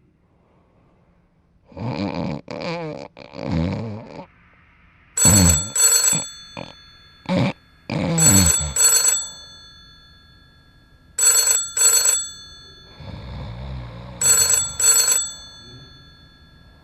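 A telephone ringing in double rings, about four pairs of short rings a few seconds apart. Other loud sounds come about two to four seconds in, before the ringing starts.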